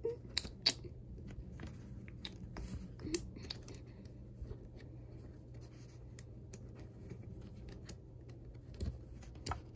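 Scattered light clicks and taps of plastic magnetic building blocks being handled and snapped together, over a low steady hum.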